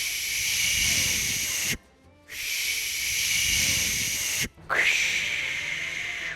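Mouth-made imitation of a torch lighter's jet flame: three long hissing 'fsssh' sounds, each lasting about two seconds with a short break between them. The last two start with a quick swoop.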